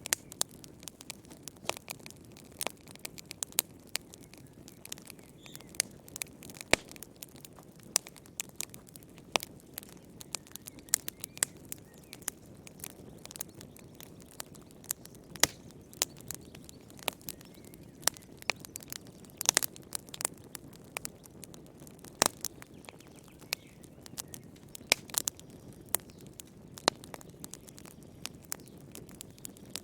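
Wood fire burning in a fireplace: irregular sharp crackles and pops, several a second, over a low steady rush of the flames.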